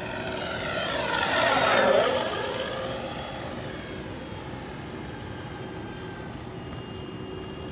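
Flightline F4U-1A Corsair electric RC warbird flying past: its propeller and motor mix with the onboard speaker's simulated engine sound. It grows loudest about two seconds in with a falling sweep, then fades to a steady, quieter drone as it flies away.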